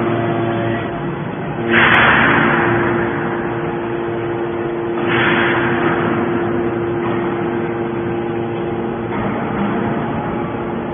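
Aluminum can baler machinery running with a steady mechanical hum. Two loud hissing surges come about three seconds apart, each fading over a second or so.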